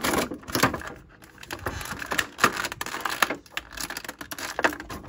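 Clear plastic packaging (a blister tray and the thin plastic bag around an action figure) being handled: irregular crinkles and sharp plastic clicks, the loudest click about two and a half seconds in.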